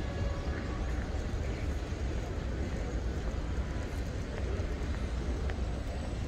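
Open-air city-square ambience: a steady low rumble under a noisy hush, with a few faint clicks.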